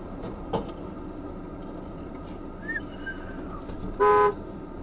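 Steady engine and road hum inside a car's cabin, with a knock about half a second in. Near the end comes a short car-horn blast of about a third of a second, the loudest sound.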